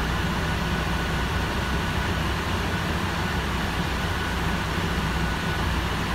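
Cabin noise of a Heuliez GX437 hybrid articulated bus on the move: a steady low rumble and hiss with a thin, steady high tone running through it.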